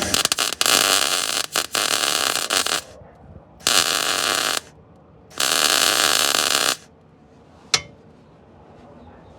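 MIG welder's arc crackling in three bursts of a second or more, the first with brief stutters, as beads are laid on the car's rusty sill and wheel arch panels. The welds are coming out poorly, which the welder puts down to bad panel metal. A single sharp click follows about two and a half seconds in from the end.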